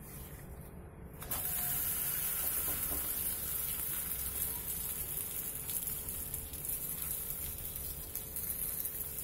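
Banana leaf on a hot greased griddle (tawa) sizzling, starting suddenly about a second in and then holding steady.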